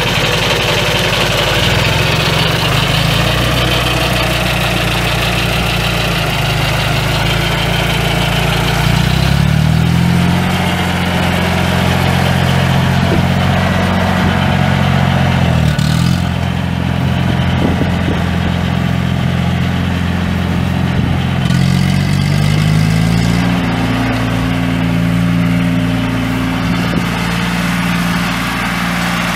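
John Deere 1520 tractor's three-cylinder gasoline engine running, its speed rising and falling a few times as the throttle is moved.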